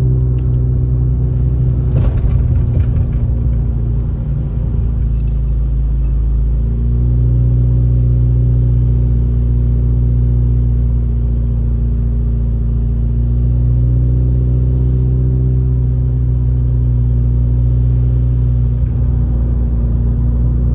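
Car engine and road noise heard from inside the cabin while driving: a steady low drone whose pitch steps up slightly about seven seconds in.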